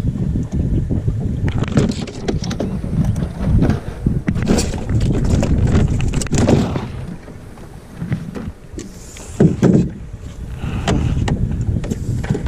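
Wind buffeting the microphone on a boat, a loud uneven rumble that drops off for a moment a little past halfway, with scattered knocks and splashes.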